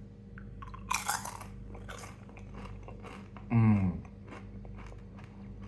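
A person biting into and chewing a dried chili pepper. There is a loud crunch about a second in and another shortly after, then softer crackly chewing.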